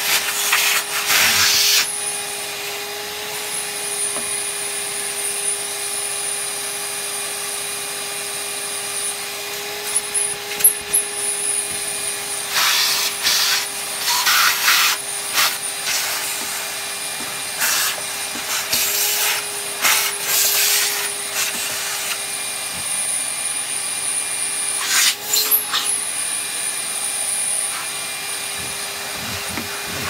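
Hoover PurePower Enigma cylinder vacuum cleaner's motor running with a steady hum and a high whine. Several louder noisy surges, each a second or two long, come near the start, through the middle and once near the end.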